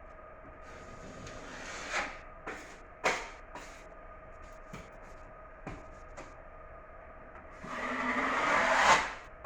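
Scraping strokes of a tool on drywall: a few short scrapes and knocks, then a longer scrape that builds and cuts off near the end, over a faint steady hum.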